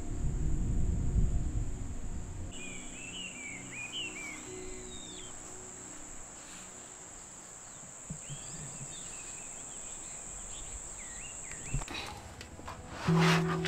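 Insects trilling steadily at a high pitch in an evening field, with short bird chirps scattered through the middle. Music fades out during the first couple of seconds, and a new piece of music comes in near the end.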